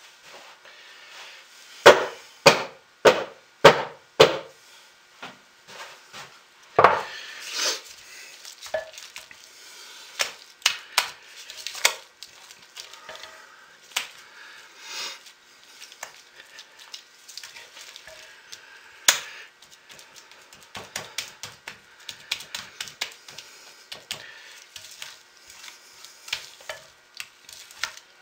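Thick hot-process soap being scooped from a crock pot and plopped, smeared and smacked down into a wooden loaf mold with a spatula. A quick run of five sharp knocks comes about two seconds in, followed by scraping and lighter slaps and taps.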